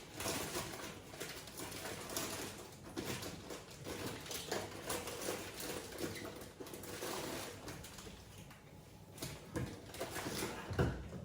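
Kitchen handling noises: irregular light clicks, knocks and rustling as containers and utensils are moved about.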